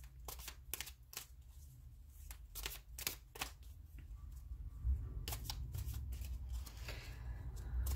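A deck of tarot cards being shuffled by hand: irregular sharp card flicks and slaps, a few a second, over a low steady hum.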